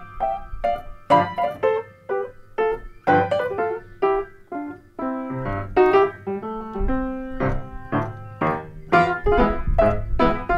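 Piano playing a ragtime tune, sparse with little bass for the first few seconds, then fuller, with the low notes strong near the end.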